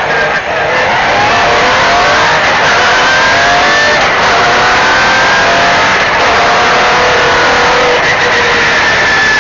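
MG Metro 6R4 rally car's 3.0-litre V6 accelerating hard, its pitch rising through the revs and dropping back at each gear change.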